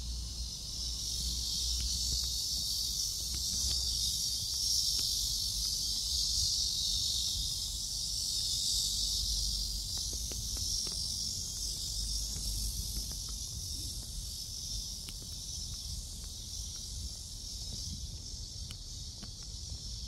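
Chorus of cicadas singing in a continuous high-pitched buzz that swells louder a few seconds in and slowly eases off toward the end.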